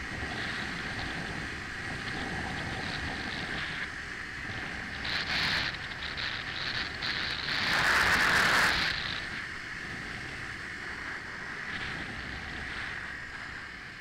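Wind rushing over the microphone of a Yamaha TW200 motorcycle riding at road speed, with the engine running underneath. The rushing swells louder briefly about five seconds in and most of all for about a second around eight seconds in.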